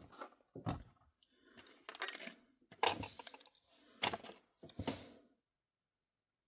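Handling of hard plastic blister packaging and a small diecast model car: a few sharp plastic clicks and taps with short scrapes and rustles between them, stopping abruptly after about five seconds.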